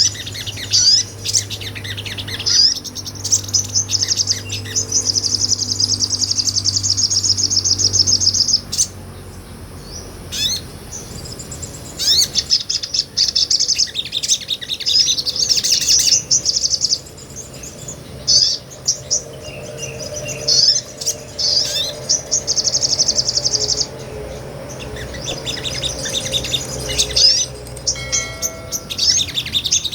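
Sogon sunbird singing: long runs of rapid, high-pitched trills and chirps, broken by short pauses.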